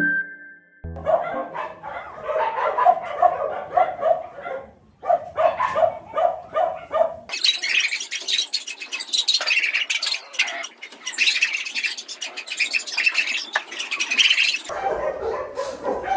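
Dogs barking in quick runs, with background music under them.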